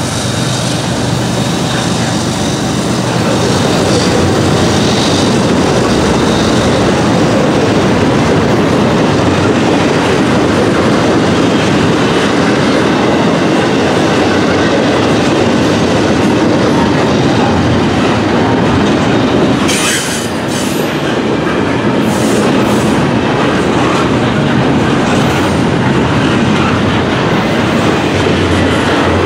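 Loaded double-stack intermodal well cars rolling past close by: a steady, loud rumble and clatter of steel wheels on the rails. A few brief sharp noises come about two-thirds of the way through.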